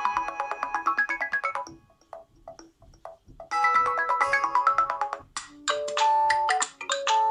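Nokia 7 Plus stock ringtones previewed one after another. A busy bell-like melody stops about 1.7 seconds in. After a short, nearly quiet gap with a few faint notes, another tone starts about 3.5 seconds in, and near 5.3 seconds a different tone with longer held notes takes over.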